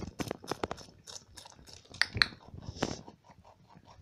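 A lop-eared rabbit chewing Chinese cabbage: quick, irregular crisp crunches, several a second.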